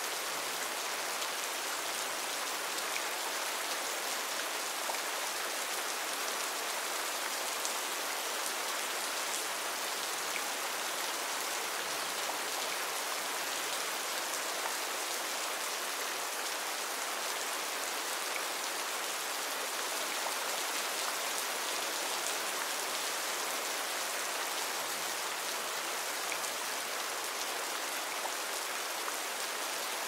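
Steady rain falling: an even hiss of many fine drops that holds level throughout.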